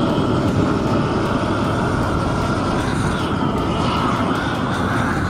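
Gas roofing torch burning with a loud, steady rushing noise as it heats bitumen torch-on membrane to bond the sheets and seal the seams.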